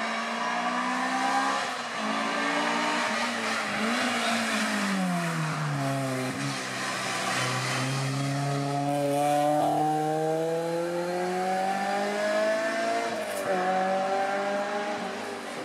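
Honda Integra hill-climb race car's four-cylinder engine under hard acceleration. Its pitch climbs in steps with each gear change, falls away for about two seconds around five seconds in as it slows for a bend, then climbs again.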